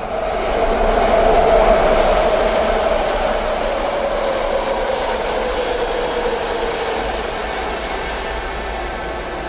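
Subway train running, heard from inside the car: a steady rumble and rush with a whine that slowly drops in pitch. It swells about a second in, then gradually fades.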